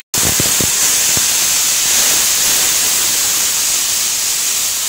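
A little water hitting hot oil with frying onions and ground spices in a pot, sizzling and giving off a steady loud hiss of steam. A few light knocks of the wooden spatula against the pot come in the first second.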